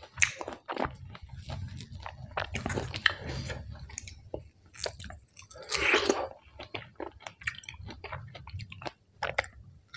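A person chewing and biting food close to the microphone: rice noodles in curry with fresh raw vegetables, giving irregular crisp crunches and wet mouth sounds. One longer, louder noisy sound comes about six seconds in.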